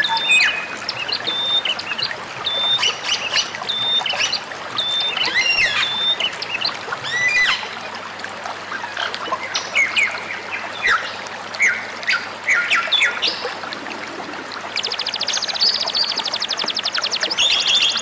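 Several songbirds calling: first a string of short, level high whistled notes repeated about every half second, then quick upward sweeping notes and scattered chirps, and from about three quarters of the way in a fast, buzzy high trill. A steady background of running water sounds beneath the birds.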